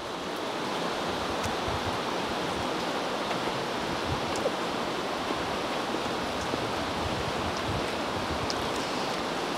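Steady rushing outdoor noise with a few faint ticks, fading in over the first second.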